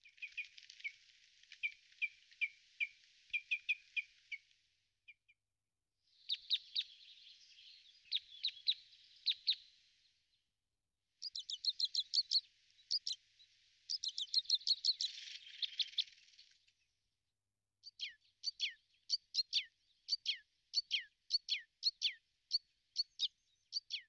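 Small songbirds chirping: quick series of short, high chirps in four stretches with short silent gaps between them. In the last stretch the notes each slide quickly downward.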